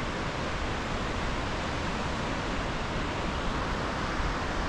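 Steady outdoor rushing noise, an even hiss with a low fluttering rumble underneath, unchanging throughout.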